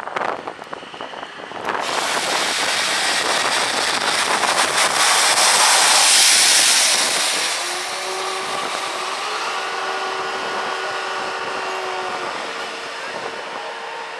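Aircraft carrier steam catapult fired in a test shot with no aircraft attached: a sudden rush of hissing steam about two seconds in, growing louder to a peak midway, then easing to a steadier hiss. A steady humming tone with overtones joins in near the end.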